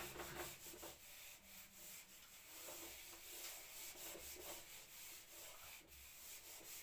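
Faint rubbing of a handheld whiteboard eraser wiped across a whiteboard in a series of uneven strokes.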